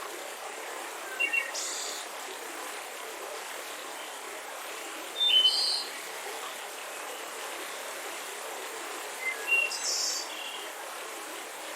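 Mountain river rushing steadily, with songbirds chirping over it: short chirps about a second in, a louder one midway, and another cluster near the end.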